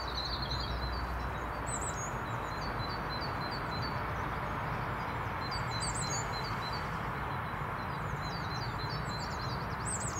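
Small songbirds chirping and calling. A quick run of short, repeated high notes comes a second or two in, and scattered high chirps follow through the rest. Under them runs a steady outdoor background hiss.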